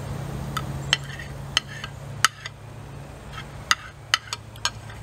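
Metal fork and spoon clinking and scraping on a ceramic plate, about a dozen sharp, ringing clinks at irregular intervals.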